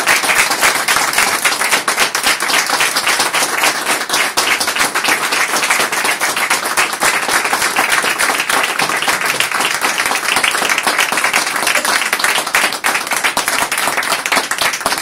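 A small audience applauding, many hands clapping at once in a dense, steady patter.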